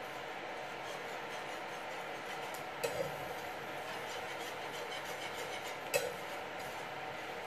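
Wire whisk stirring a creamy cheese sauce in a metal frying pan, soft scraping over a faint steady hiss, with the whisk clinking against the pan about three seconds in (a quick double clink) and again about six seconds in.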